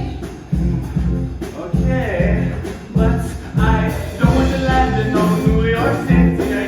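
A live band playing an up-tempo, island-flavoured song with a steady bass beat, with voices singing over it.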